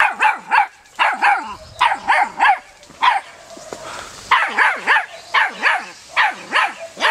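Puppy barking: about fifteen sharp, high-pitched barks, mostly in quick twos and threes.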